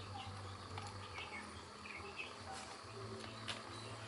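Quiet background with scattered faint chirping, and a few light clicks from a chuck key turning in the drill's keyed chuck while a bit is being fitted.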